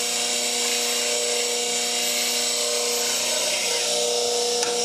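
Bench grinder with a CBN wheel running at speed, giving a steady motor whine, while a bowl gouge's steel bevel is ground against the wheel with a steady hiss.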